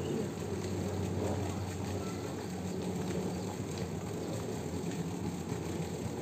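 Steady outdoor background noise with a low hum, stronger in the first two seconds.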